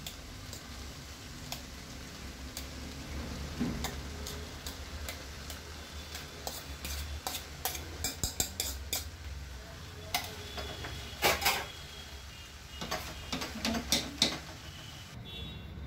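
Steel colander knocking and scraping against a cooking pot as cooked rice is tipped out of it, then a spatula stirring through the rice: a string of light clicks and clinks.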